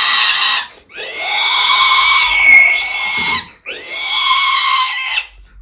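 A mimicry artist's voice imitating an animal call: three long, strained calls with short breaks between them, the first already under way and the middle one the loudest, rising in pitch near its peak.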